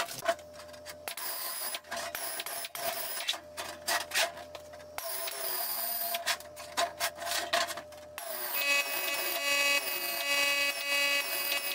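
Handling and knocking of paper and sheet metal on a workbench, then, about eight seconds in, a pneumatic sheet-metal shear starts running steadily as it cuts through thin sheet steel.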